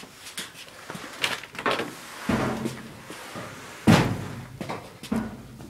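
A series of knocks and thumps, the loudest a heavy bang about four seconds in, with another strong thump a little over two seconds in.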